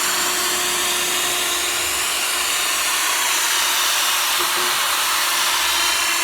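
Drill spinning a sanding pad against a plastic headlight lens during wet sanding at 2000 grit: a steady whirring hiss with a faint motor hum underneath.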